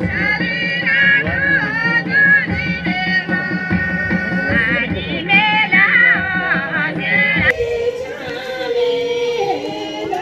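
Traditional Kinnauri folk music: wind instruments play a high, wavering melody over a steady drone, with a drum beat about every second and a bit. The music cuts off abruptly about three-quarters of the way in, and voices follow.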